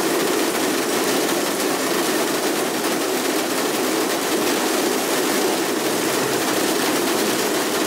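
Torrential rain pouring down in a thunderstorm cloudburst: a steady, dense hiss.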